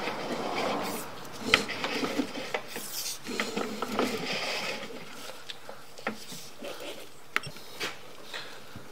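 Sewer inspection camera's push cable being fed along a drain line: irregular rubbing and scraping with scattered sharp clicks, busier in the first half and thinning out after about five seconds.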